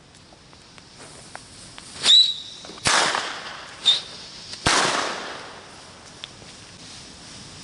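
New Year's Eve fireworks and firecrackers: four sharp bangs about two to five seconds in, two with a brief high whistle and two trailing off in a long echo, among scattered faint distant pops.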